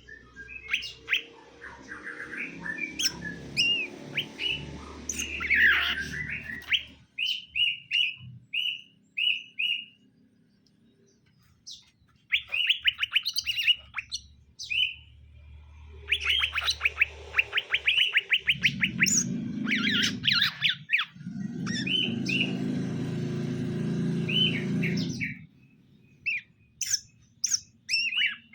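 Cucak ijo (green leafbirds) calling in bursts of short, sharp chirps and fast trills, with pauses between. A louder low noise runs under the calls for a few seconds past the middle.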